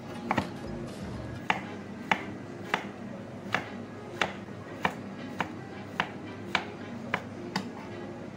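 A cleaver cutting through a tomato and striking a thick wooden log chopping board: about a dozen sharp chops at an even pace, roughly two a second, over background music.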